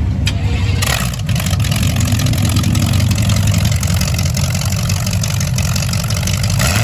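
Car engine idling with a steady low drone, with a hiss spreading over it from about a second in.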